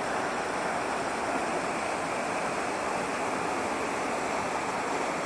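Small waterfall pouring over rock into a pool: a steady rush of falling water.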